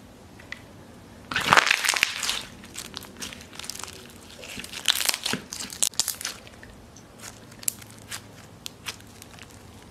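Clear purple slime being squeezed, stretched and folded by hand, crackling and squelching. There are two louder bouts, about a second and a half in and about five seconds in, then scattered sharp clicks and pops.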